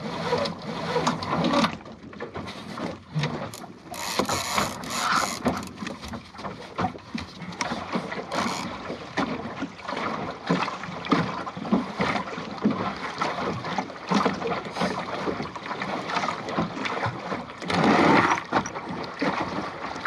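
Water splashing and slapping against the hull of a small plywood Goat Island sailing skiff under way, in short irregular slaps over a steady rush of water, with a louder surge about 18 seconds in.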